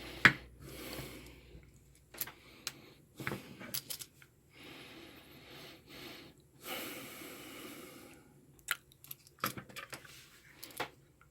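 Handling noise from an opened plastic multimeter case and circuit board: scattered light clicks and knocks with soft rustling in between.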